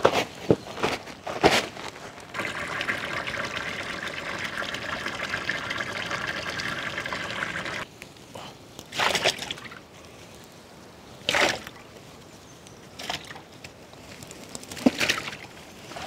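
Bunches of carrots with leafy tops rustling and thudding as they are handled and piled into a large metal vessel, broken by scattered rustles. For about five seconds near the start there is a steady pouring hiss that cuts off suddenly.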